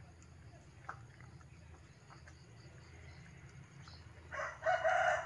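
A rooster crowing once, a long held call starting about four seconds in, after faint scattered ticks.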